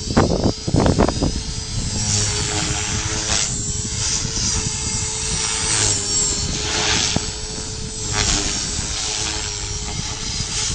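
Align T-Rex Pro RC helicopter flying, its rotor and drive giving a steady whine, with strong wind buffeting the microphone in gusts, hardest in the first second.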